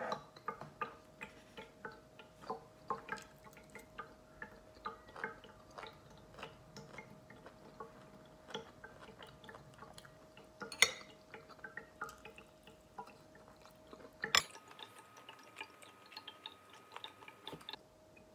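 Scattered light clicks and taps of metal chopsticks against ceramic bowls and a plate during a meal, over a faint steady hum. A sharper knock comes about 14 seconds in, after which the hum is replaced by a higher, fainter tone.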